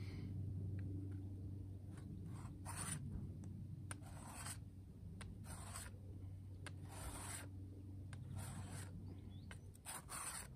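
A steel billhook blade being stroked across a sharpening plate to sharpen its edge. About six gritty scraping strokes come roughly a second and a half apart, beginning a couple of seconds in.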